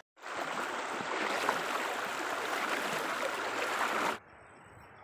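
Fast-flowing muddy river rushing, a steady loud hiss of moving water. It cuts off abruptly about four seconds in, leaving a fainter sound of flowing water.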